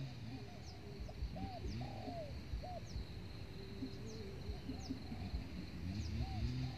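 Spotted doves (tekukur) cooing, repeated soft rolling coos that overlap one another, with faint short high chirps above them.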